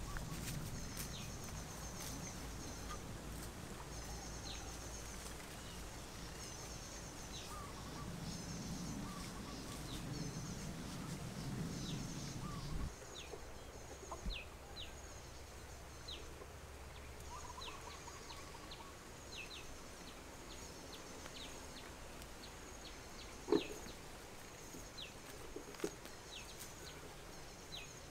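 Quiet outdoor ambience of birds calling: many short, repeated chirps and trills, with some lower calls now and then. A low background hum fades out about halfway through, and there is a single sharp knock about two-thirds of the way in.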